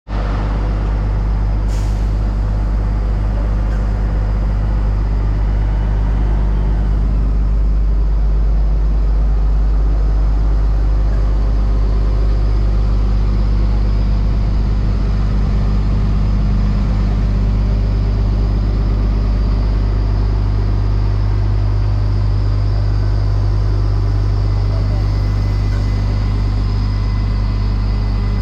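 Diesel engine of a Terex Cedarapids CR452 asphalt paver running at a steady speed, a loud, even, low drone.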